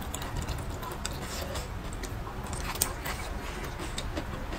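Close-miked chewing of braised pork, with scattered sharp mouth clicks and wooden chopsticks clicking against the food and bowl, one louder click about three seconds in.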